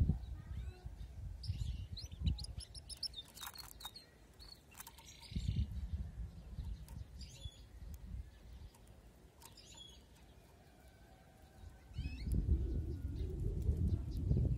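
Caged domestic canary giving scattered short chirps and brief trills, in several separate bursts mostly in the first half. A low rumble rises near the end.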